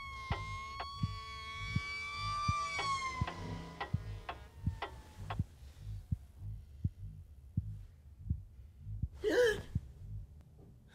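Film sound design: a slow, steady heartbeat thump paired with a clock-like tick, about every 0.7 seconds, under a high ringing tone that sags in pitch and fades out about four seconds in. Near the end comes one loud, sharp gasp as the sleeper wakes with a start.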